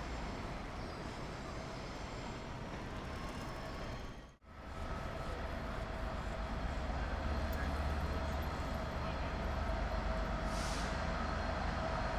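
Train running on the line: a steady rumble with a faint steady whine. The sound drops out for an instant about four seconds in, then comes back as a louder low train rumble that grows toward the end.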